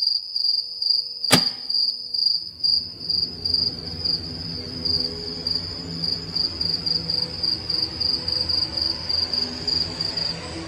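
A cricket chirping steadily in rapid, even pulses, with one sharp click about a second in.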